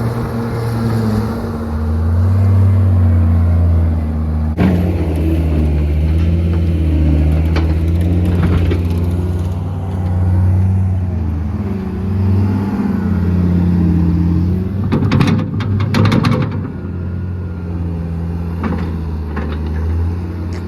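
An engine running steadily, its pitch stepping up and down as it works, with a short burst of clattering knocks about three quarters of the way through.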